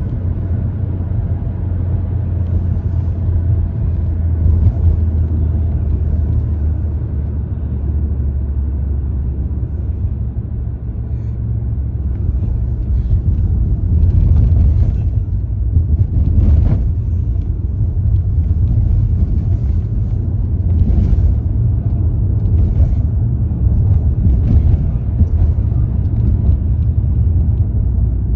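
Car driving, heard from inside the cabin: a steady low rumble of engine and road noise, with several brief louder rushes of noise in the second half.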